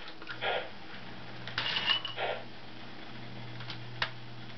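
Lionel toy steam train running on its track, with a steady electric hum, short clattering bursts and a few sharp clicks. The loudest clatter comes near the middle, with a brief high ring in it.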